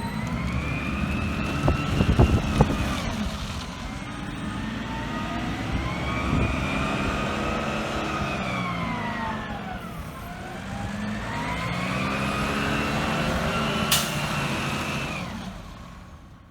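Garbage truck engine revving up and falling back three times, with a high whine that rises and falls in step with it. There is a sharp click near the end, and then the sound fades away.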